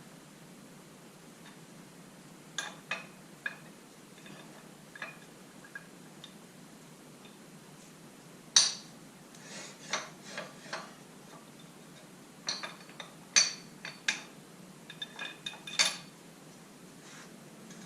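Small steel parts and sockets clinking and tapping against each other as they are handled, in irregular clusters of sharp clicks, the loudest about eight and a half seconds in.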